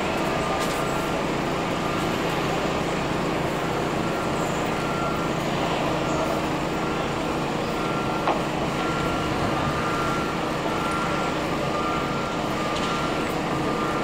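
Construction-site and street background noise: a steady engine hum with the repeating on-off high beep of a vehicle reversing alarm, and one brief knock a little over halfway through.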